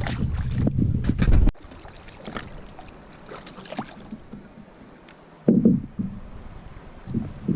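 A kayak on the water being paddled: water splashing and dripping off the paddle, with a loud low knock against the hull about five and a half seconds in. A heavy low rumble in the first second and a half cuts off abruptly.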